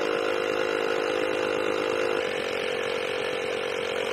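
Portable 12 V Osram tyre compressor running steadily while inflating a van tyre to 2 bar, its note shifting slightly about halfway through. It cuts off suddenly at the end as it is switched off.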